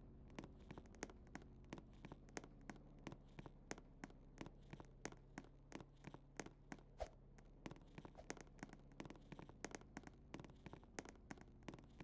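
A bone being chewed: sharp, irregular crunching cracks, about three or four a second, over a steady low hum.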